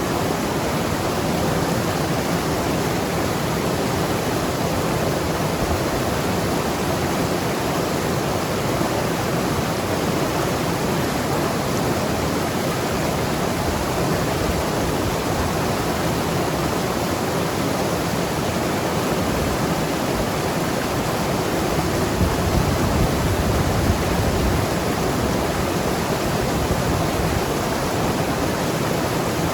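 Mountain river rushing and gurgling over rocks, a steady, even sound of flowing water.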